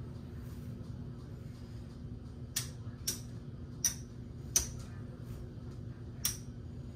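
Casino chips clicking against each other as they are picked up and set down on a craps table, about five sharp clicks at uneven intervals starting some two and a half seconds in, over a steady low hum.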